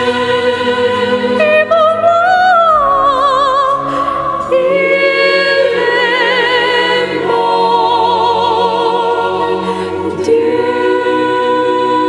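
Classical concert music: a soprano soloist sings with wide vibrato, backed by a choir and a small string ensemble. Her voice comes in about a second and a half in over sustained chords.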